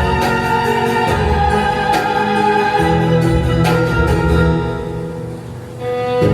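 Orchestral show music with sustained string and choir-like chords, dropping in loudness about five seconds in before a strong new chord returns at the end.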